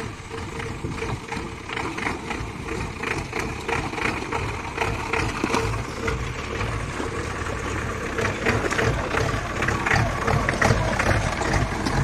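A 4x4 jeep's engine running steadily, with irregular knocks and rattles throughout.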